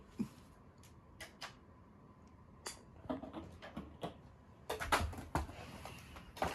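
A dog chewing a plastic drink bottle, the plastic crackling and cracking in its jaws in an irregular series of sharp snaps, coming thicker and louder in the second half.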